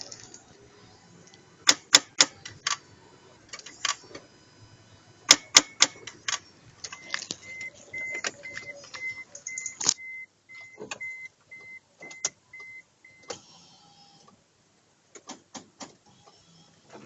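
Sharp clicks and knocks with no engine cranking or running, then a run of short high electronic beeps about two a second from the car's warning chime, while a Proton Satria Neo that won't start is being tried.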